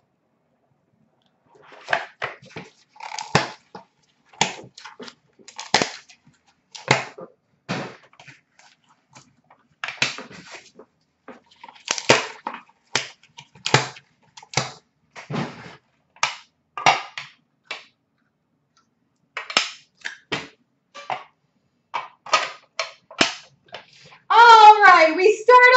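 Hard plastic card cases and box packaging being handled and opened: irregular sharp clicks, snaps and clacks, a few each second with short pauses. A voice begins near the end.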